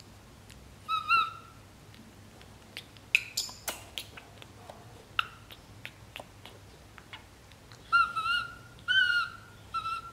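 Infant macaque crying with high, whistle-like coos: one about a second in, then three or four in quick succession near the end. A few sharp clicks and small knocks fall in the quiet stretch between them.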